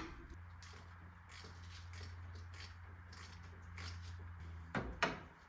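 Light clicks and metallic knocks of a wrench working a 17 mm bolt loose, faint and irregular, with two sharper knocks near the end. A steady low hum runs underneath.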